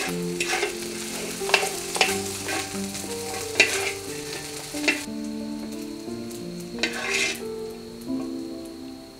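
Wooden spatula stirring and scraping fried rice in a sizzling wok, in irregular strokes. The sizzling ends about five seconds in, and one more scrape comes near seven seconds. Soft background music with held notes plays throughout.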